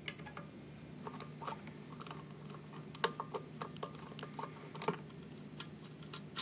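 Faint, scattered clicks and ticks of a screwdriver backing small screws out of the head of a KitchenAid stand mixer, with a few sharper clicks as the screws are handled.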